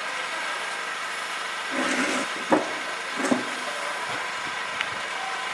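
Steady background hum with a couple of brief distant shouts about two and three seconds in, and a sharp knock between them.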